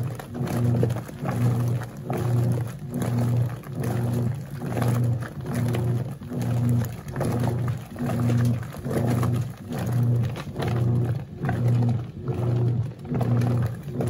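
Wanke Sally 5 kg semi-automatic washing machine agitating a load in soapy water: its motor hums in regular pulses, about four every three seconds, as the agitator swings back and forth, with water sloshing in the tub.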